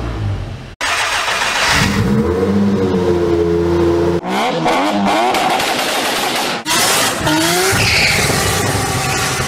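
Car engine revving repeatedly, rising and falling in pitch. The first rev is the Seat Leon Cupra 290's turbocharged 2.0-litre four-cylinder, cut off sharply just under a second in. Further revs follow, with a sudden break about four seconds in.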